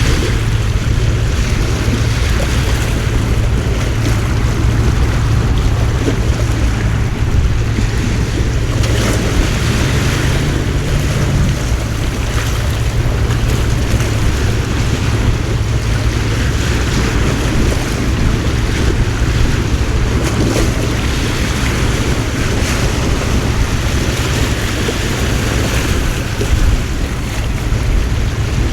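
Coastal storm noise: a heavy, steady wash of wind and water around moored wooden fishing boats, with wind buffeting the microphone. A low hum sits underneath for the first part and fades about eleven seconds in.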